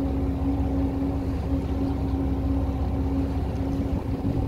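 Tour boat's engine running steadily, heard on board: a continuous low rumble with a steady hum.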